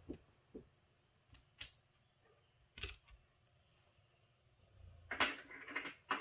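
Casino chips clicking as they are set down on a craps table's felt layout: a few separate clicks, the sharpest about three seconds in, then a longer, busier stretch of sound near the end.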